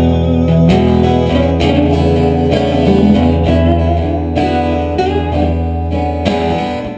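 Acoustic guitar playing an instrumental passage between vocal lines of a slow blues-rock song, with a low note held underneath that drops away near the end.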